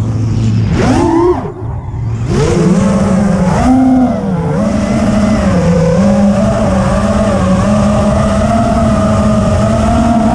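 Brushless motors and Gemfan 51433 propellers of a 6S FPV freestyle quadcopter, a high whine that rises and falls with the throttle. There is a quick punch about a second in and a short drop to low throttle just after, then a steadier whine with small wavers.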